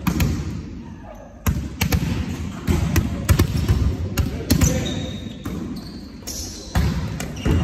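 Indoor volleyball rally: a series of sharp, irregular slaps of hands and forearms on the ball, with short high squeaks of trainers on the wooden court, echoing in a large hall.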